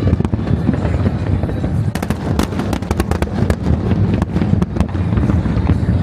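Fireworks and firecrackers going off together: a continuous low rumble of many detonations with frequent sharp cracks, thickest from about two to three and a half seconds in.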